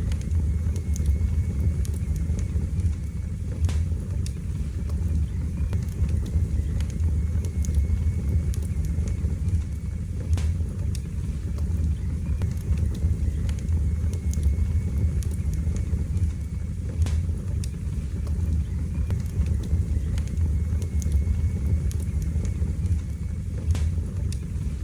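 Wood fire burning in a fireplace: a steady low rumble with scattered sharp crackles and pops every few seconds.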